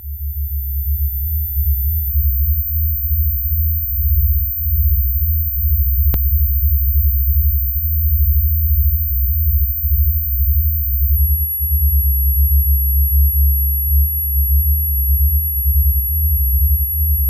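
Low, throbbing electronic drone with a thin, very high steady tone above it that steps down in pitch about eleven seconds in; a single click about six seconds in.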